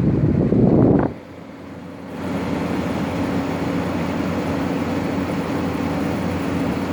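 New LG 12,000 BTU window air conditioner running on cool, a steady hum with a low tone, running smoothly without the odd noises the previous unit made. The sound drops sharply about a second in and returns steady about a second later.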